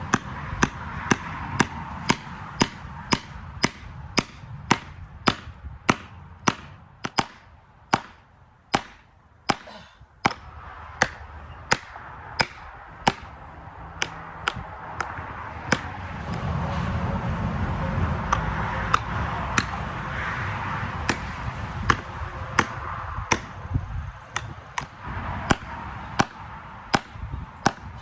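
Repeated hammer blows driving a felling wedge into the cut of a silver maple, about two sharp strikes a second with a brief pause partway through. The wedging is meant to lift the tree and tip it in the chosen direction.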